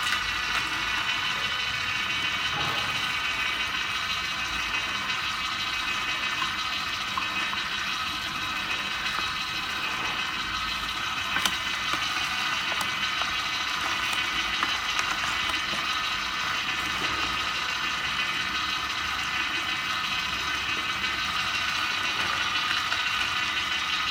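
Vertical slow juicer's geared motor and auger running steadily, crushing carrots and celery fed down the chute: a steady mechanical whine with a few faint clicks.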